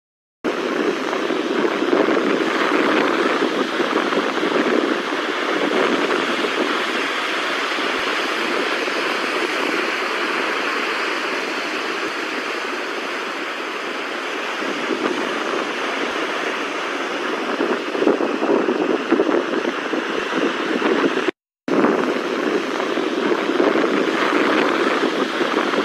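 Floodwater rushing steadily, a loud, even roar of fast-moving water.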